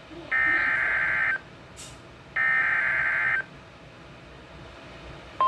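NOAA Weather Radio SAME alert header coming from a Midland WR120 weather radio's speaker: two one-second bursts of two-tone digital data, about two seconds apart. These are the last two of the header's three repeats. Right at the end the steady 1050 Hz warning alert tone begins.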